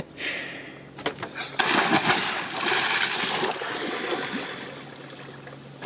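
A person jumping feet-first into the sea: a loud splash about a second and a half in, then a couple of seconds of splashing and churning water as he thrashes at the surface, fading out.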